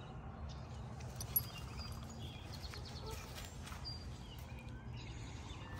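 Footsteps of a walker and a dog crunching and rustling through dry fallen leaves, as scattered irregular clicks with one sharper snap about a second and a half in, over a steady low rumble. A few faint short bird chirps come through.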